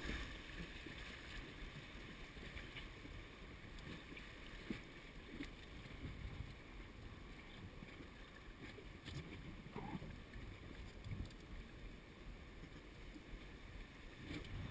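Faint rush of river water with low wind rumble on the microphone, and a few light knocks as people shift about on the inflatable raft.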